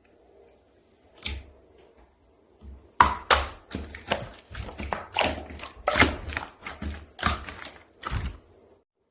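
Slime being squeezed and pressed by hand, making sharp pops and clicks: a single pop about a second in, then a quick, irregular run of pops from about three seconds until near the end.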